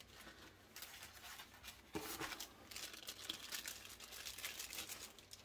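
Clear plastic bag crinkling and rustling as it is handled, with a single sharp knock about two seconds in.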